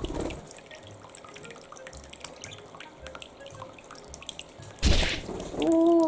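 Water dripping and trickling from a bird drinking fountain's spout into its plastic bowl: a run of small, quick drips. About five seconds in comes a brief loud rush of noise.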